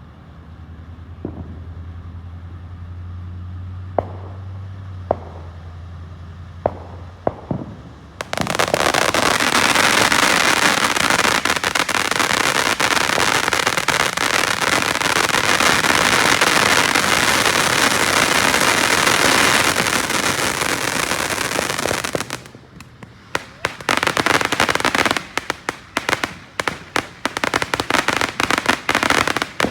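TNT Guiding Light firework going off: a few faint clicks over a low steady hum, then about eight seconds in a loud continuous hissing spray that lasts about fourteen seconds, followed by dense rapid crackling pops to the end.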